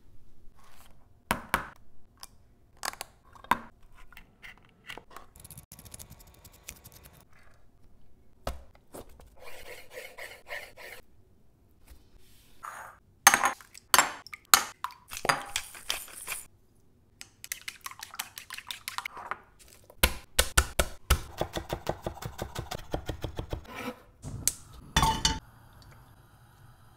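Kitchen prep sounds: dishes and utensils clinking, knocking and scraping, including an egg being cracked on a ceramic bowl about halfway through. Toward the end comes a quick run of clicks.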